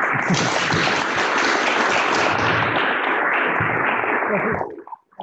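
Audience applauding, starting at once and dying away about four and a half seconds in.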